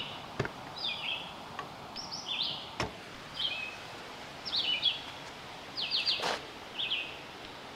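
Small birds chirping over and over, short high chirps about once or twice a second, above a low outdoor background hiss, with a few faint clicks.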